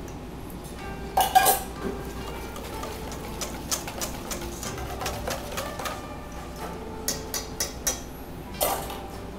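A wire balloon whisk clicks and scrapes against a stainless steel bowl, beating a runny mix of white miso, egg yolk and sake. The taps come irregularly, with louder clinks about a second in and again near the end.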